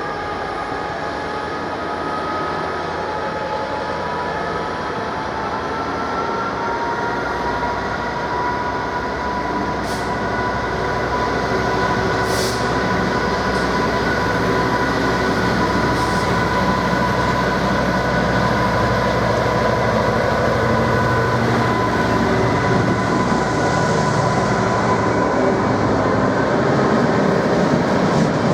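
Train running and gathering speed: a steady whine, with several pitches that slowly rise as the train gets gradually louder. A few brief high clicks cut through it.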